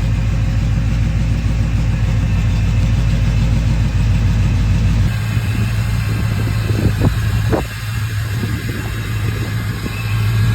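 1988 Chevy K1500 pickup's engine idling steadily through its newly installed Borla dual exhaust. The sound changes abruptly about halfway through.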